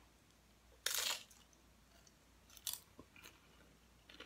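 Crunching and chewing on nacho tortilla chips: one loud, crackly bite about a second in, then a few softer crunches.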